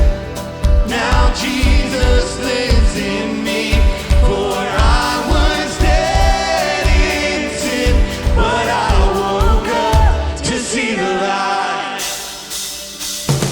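Church worship band playing a worship song with group singing over a steady kick-drum beat. Near the end the drums drop out and the music thins.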